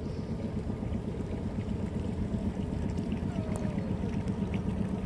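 Outboard motor of a small boat running steadily underway, a low even rumble with water noise over it.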